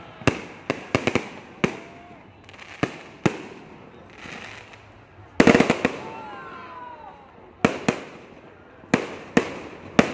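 Aerial fireworks shells exploding overhead: a string of sharp bangs every half second to a second, with a quick volley of bangs about halfway through.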